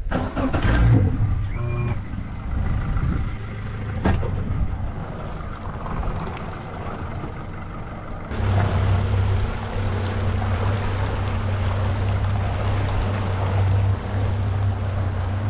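Yamaha outboard motor running as the boat gets under way, with wind and water rushing past. A single knock comes about four seconds in, and from about eight seconds in the engine settles into a steady low hum.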